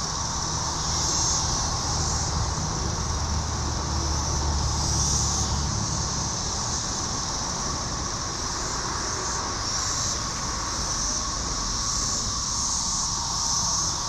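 Chorus of Brood XIX 13-year periodic cicadas droning continuously, a dense steady buzz that swells and eases in places. A low rumble underneath fades out about six seconds in.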